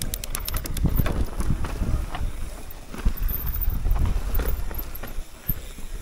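Wind buffeting the microphone as a low, uneven rumble, with scattered small clicks and knocks. A quick run of even ticks comes in the first second.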